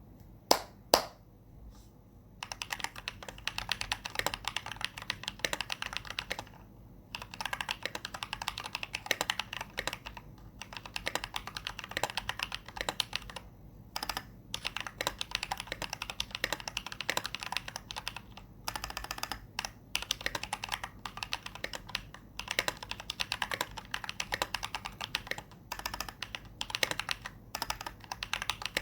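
Typing on a mechanical keyboard with lubed Holy Panda tactile switches, a brass plate and PBT keycaps. Two single loud key clacks come in the first second, then fast continuous keystrokes with short pauses every few seconds.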